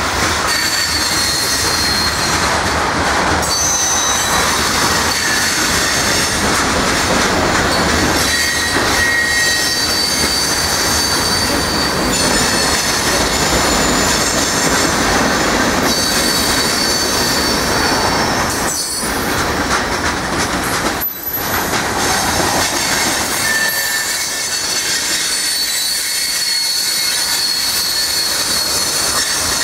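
Freight cars of a mixed manifest train rolling past close by: a steady loud rumble and clatter of steel wheels on rail, with thin high-pitched wheel squeals that come and go.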